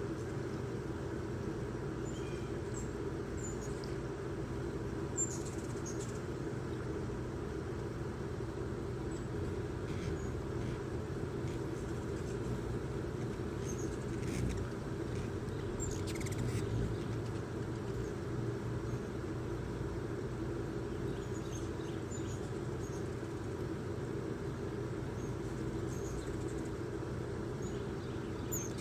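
Ruby-throated hummingbirds giving brief, scattered high chips over a steady low background hum.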